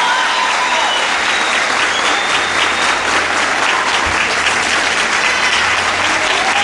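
Large audience applauding steadily at the end of a performance.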